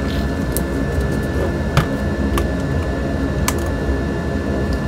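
Light scattered clicks and taps as a keyboard circuit board is handled, over a steady low hum.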